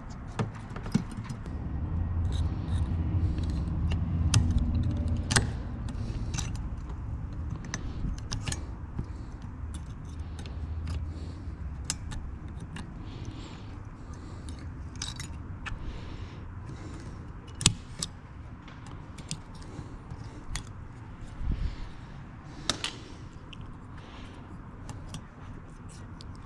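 Scattered sharp clicks and small rattles of hands working an LED headlight bulb with a heat sink into a car's headlight housing, with a low rumble of handling noise for several seconds near the start.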